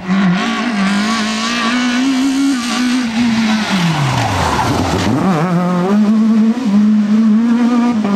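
Renault Mégane coupé rally car's engine at high revs at racing speed. About four seconds in the revs fall away sharply as it brakes for the bend, then climb straight back up as it accelerates away at full throttle.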